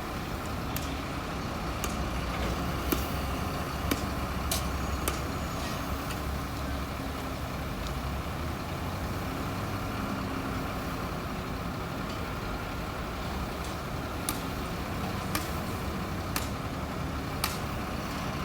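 Bulldozer's diesel engine running steadily, with short sharp clicks now and then, about one a second near the end.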